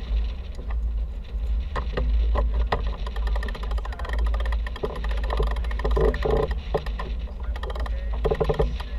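Wind rumbling on the microphone and water noise on a catamaran under sail, with scattered clicks and knocks from the boat's gear.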